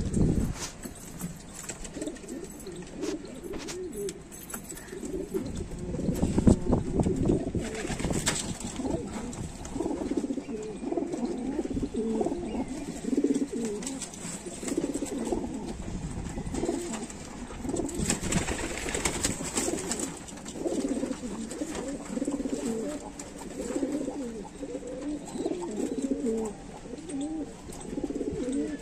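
Pigeons cooing continuously in low, wavering calls, with occasional knocks and a spell of rustling about two-thirds of the way through.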